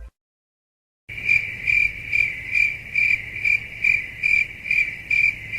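Crickets chirping, the meme sound effect used as a cue for awkward silence: a steady high chirr that pulses about twice a second. It starts about a second in, after a second of silence.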